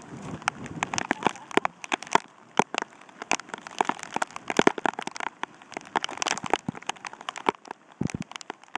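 Heavy rain falling, with many sharp, irregular taps of drops striking close by over a steady hiss.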